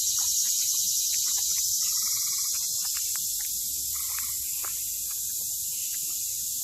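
Steady high-pitched insect chorus, like crickets, with a fine flutter. A few short chirps come about two seconds and four seconds in.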